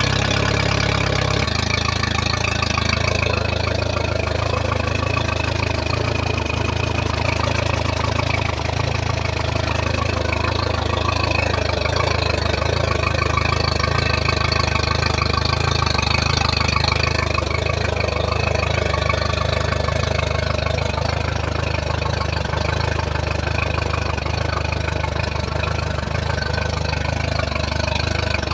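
Mercury 60 hp Big Foot four-stroke outboard idling steadily out of the water, cooled by a garden hose, warming up so the thermostat opens and stabilized fuel runs through it before winterizing.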